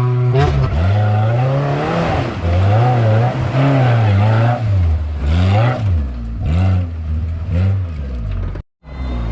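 Modified off-road 4x4's engine revving up and down again and again as it is driven hard through the course. The sound cuts out completely for a moment near the end.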